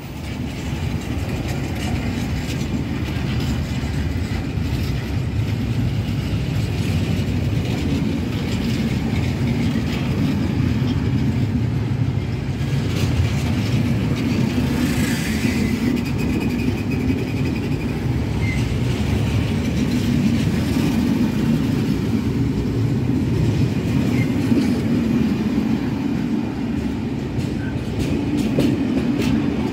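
Freight train of empty stake flat wagons rolling past close by: a steady, loud low rumble of steel wheels on the rails.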